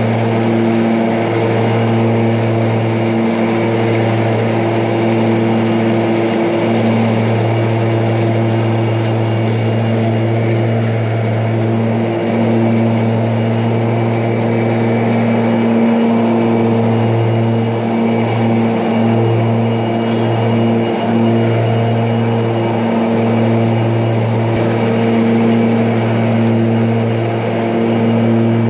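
Ryobi 80-volt battery-electric zero-turn riding mower running with its mulching blades spinning: a steady electric hum that dips briefly now and then.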